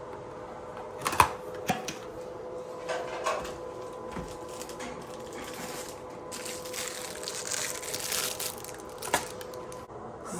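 Packaging and plastic parts being handled during an unboxing: several sharp clicks and knocks, and a few seconds of rustling wrapping near the middle, over a faint steady hum.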